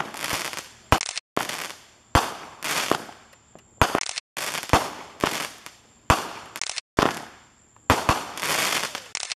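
Aerial fireworks going off in quick succession: about a dozen sharp bangs, roughly one a second, each followed by a fading crackle and hiss as the stars burn out.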